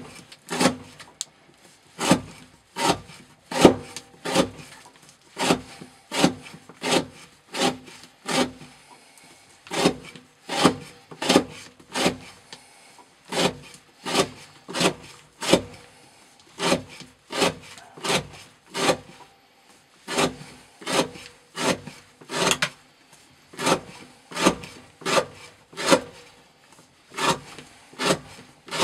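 A CPM 15V steel knife blade shaving curls off the edge of a wooden board, one short scraping cut after another, about three strokes every two seconds.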